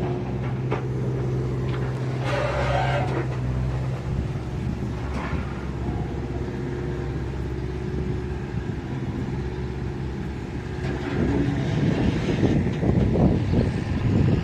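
Excavator's diesel engine running steadily. About eleven seconds in it grows louder and more uneven, as the machine works under load.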